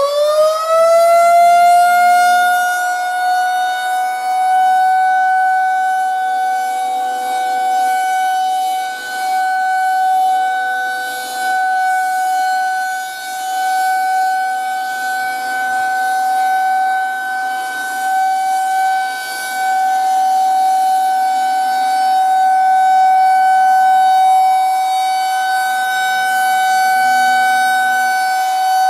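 Federal Signal 2001-130 electromechanical outdoor warning siren sounding its steady alert tone for a snow emergency. It finishes winding up to pitch in the first couple of seconds, then holds one steady pitch, swelling and fading every few seconds as the rotating horn turns.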